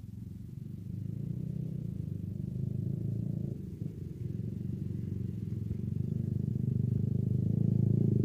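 Motorcycles and scooters riding across a railway level crossing, several small engines running together, growing louder near the end.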